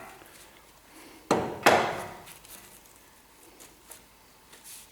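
Two sharp knocks about a third of a second apart, with a short ringing decay, then a few faint ticks: tools knocking against the suspension mounts as rusty alignment shims are worked off a Corvette chassis.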